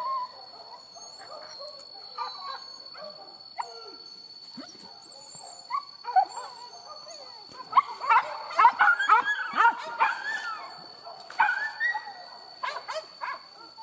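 Hunting dogs yipping and whining in short, high-pitched, gliding cries, sparse at first and then coming thick and fast from about eight seconds in.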